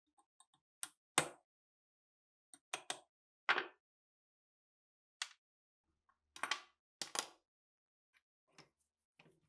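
A steel pin punch tapped with a hammer, drifting a rusted pin out of an SVT-40 rifle part held in a vise. There are about a dozen sharp metallic knocks at uneven spacing, some in quick pairs, a few with a brief ring.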